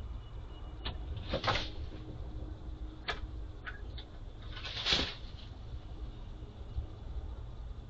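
A black vulture coming onto its nest scrape: two short noisy rushes, about a second and a half in and again at five seconds, the second louder, with a few light sharp clicks between, over a steady low rumble.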